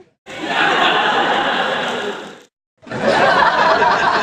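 Crowd of audience members laughing, in two separate bursts: the first swells and dies away about halfway through, and after a brief silence a second burst of laughter starts.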